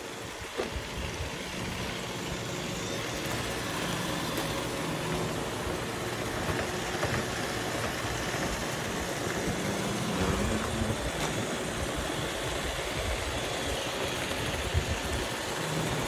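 Several robot vacuums (eufy, iRobot Roomba and Shark) running together, a steady motor hum with a few light clicks, under steady wind noise.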